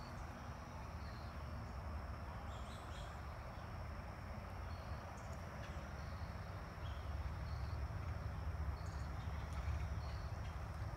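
Outdoor ambience: a steady high insect drone with scattered short bird chirps, over a low rumble that grows louder about two-thirds of the way through.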